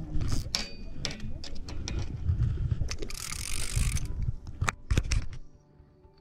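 Handling noise from a fishing rod and spinning reel being grabbed: a quick run of clicks, knocks and low thumps, with about a second of rustling hiss a little past the middle.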